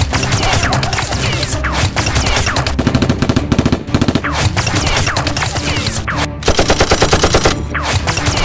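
Automatic-gunfire sound effects in long rapid bursts of shots, standing in for Nerf blasters firing darts, with a faster, evenly spaced burst about six and a half seconds in.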